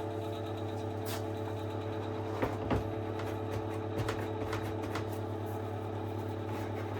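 A few light clicks and knocks from the induction hob's housing being handled as it is tried for lifting, over a steady low hum.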